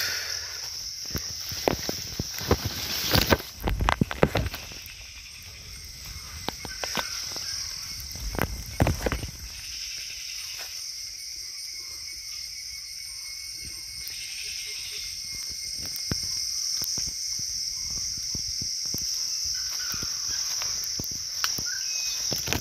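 Steady high-pitched drone of forest insects, with footsteps and rustling through wet undergrowth in the first nine seconds or so, then mostly the insect drone alone.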